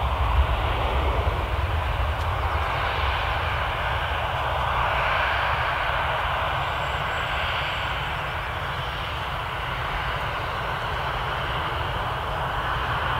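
Jet engines of a Boeing 757-200 airliner at takeoff thrust as it lifts off and climbs away: a steady rushing noise with a deep rumble that is strongest at first and eases a little as the aircraft climbs.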